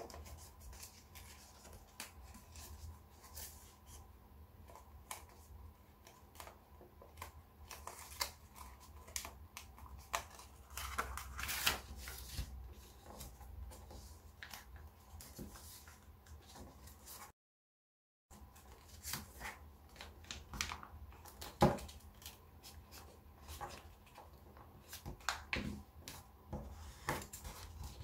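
Sheet of origami paper rustling and crinkling under the fingers as it is folded and creased, in many short irregular crackles over a faint low hum. The sound drops out completely for about a second past the middle.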